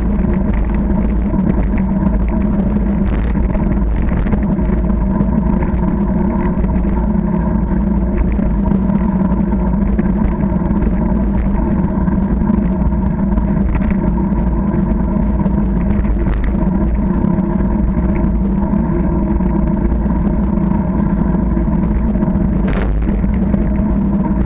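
Steady rumbling hum of a bicycle rolling along a tarmac path, picked up through a camera mounted on the bike, with a few short knocks from bumps in the path.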